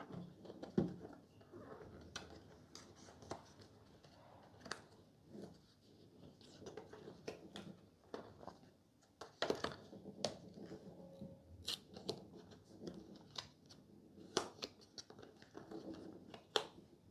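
Packaging being handled and opened by hand: irregular sharp clicks, short scrapes and rustles at a low level.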